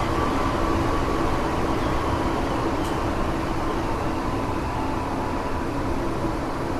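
Tokyo Metro 7000 series electric train (armature-chopper car 7023) running between stations, heard from inside the car: a steady rumble of wheels on rail with a faint whine above it that drifts slightly lower, easing off a little toward the end.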